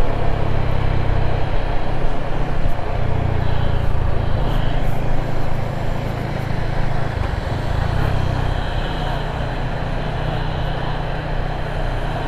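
Yamaha Sniper 155 motorcycle's single-cylinder engine running while the bike is ridden along a road, with steady road and wind noise. It gets a little quieter about six seconds in.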